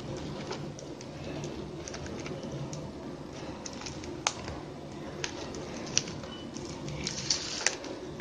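Plastic basket-weaving wire strands rustling and clicking as they are threaded and pulled tight through a woven handle. Scattered sharp ticks, with a quick run of them near the end, over a steady low hum.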